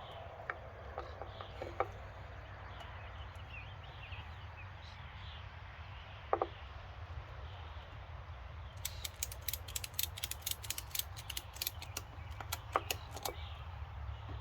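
Ratchet strap being cranked tight: a quick run of sharp ratcheting clicks, about five a second, in the second half of a few seconds of quieter handling.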